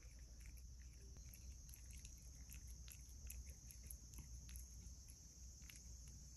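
A cat licking and chewing a piece of mango: faint, irregular wet mouth clicks several times a second, over a steady low hum.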